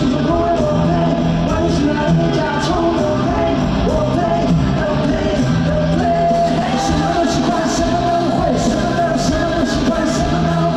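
Live rock music: a band playing with a singing voice over a steady beat and held notes.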